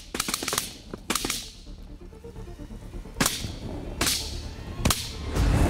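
A volley of shotgun fire from several duck hunters: a quick run of shots in the first second and a half, then three single shots about a second apart, each ringing out briefly across the open field.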